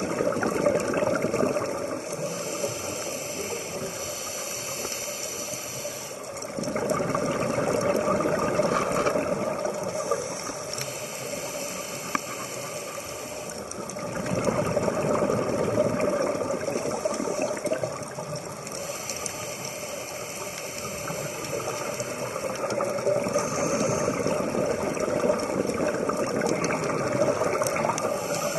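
Scuba diver breathing through a regulator underwater: a hissing inhale alternating with a louder bubbling exhale, in a slow, even cycle of roughly eight seconds, about three and a half breaths.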